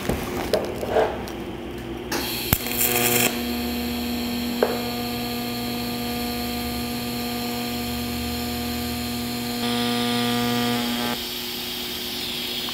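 TIG welding arc on a steel exhaust flange at about 120 amps: a steady buzzing hum that starts about three seconds in and stops about a second and a half before the end.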